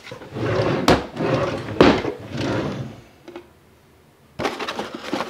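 Wooden kitchen drawer pulled open, with two sharp knocks in the first two seconds, and boxes of plastic bags and foil shuffled inside it; more handling noise near the end.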